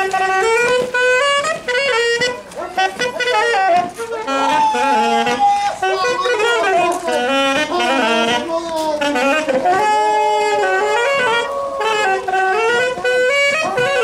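Live music for a traditional vaqueros folk dance: a melody instrument plays a lively tune, its notes moving in quick steps up and down, with voices faintly underneath.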